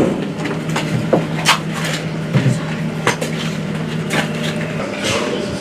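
Knocks and clicks of service rifles being handed out through an armory's barred issue window and handled, about half a dozen separate strikes. A steady low hum underneath stops near the end.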